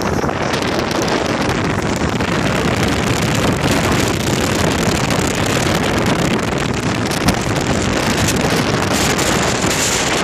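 Wind blowing across a handheld phone's microphone, a loud, steady rushing noise.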